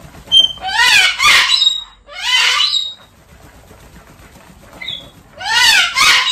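Umbrella cockatoo giving loud, harsh squawks in three bursts, each call arching up and falling in pitch: about a second in, again around two and a half seconds, and near the end. Its wings flap audibly between the calls.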